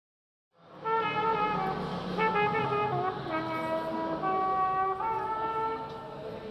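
A solo wind instrument playing a jazz melody, one line of held notes moving up and down in pitch, coming in out of silence about half a second in.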